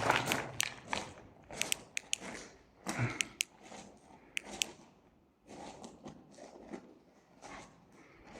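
Irregular small clicks and scuffing handling noises from a handheld torch being fiddled with as someone tries to get it working again after it has gone out.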